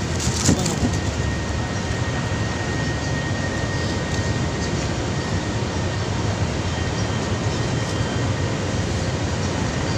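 Steady rushing, rumbling outdoor noise with no speech, heavy in the low range, with a faint thin whine in the first half and a couple of clicks about half a second in.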